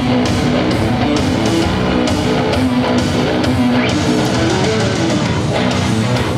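Loud rock music with guitar and a steady beat, playing as the soundtrack to a stage dance routine.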